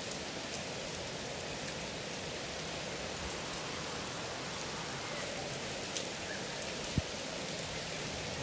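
Steady heavy rain pouring down, with a single sharp tap about seven seconds in.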